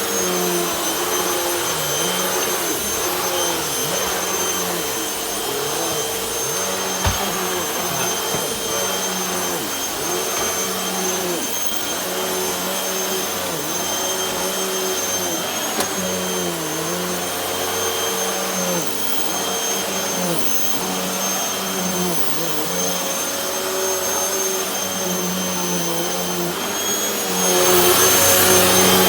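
Hoover WindTunnel T-Series upright vacuum cleaner running steadily with its motor whine, working after a switch replacement. Its lower tone wavers throughout, and it gets louder near the end.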